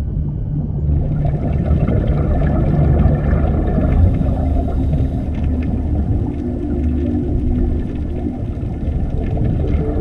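Underwater ambience: a deep, steady rumble with a hissing wash of water that comes in about a second in, over sustained low tones.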